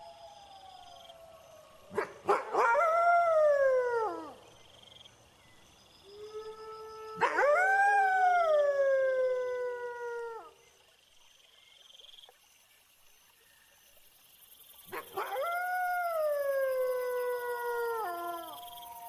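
Wolves howling: three long howls, each rising and then sliding down in pitch, sometimes two voices together, over steady cricket chirping.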